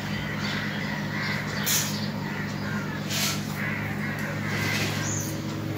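Crows cawing repeatedly over a steady low hum.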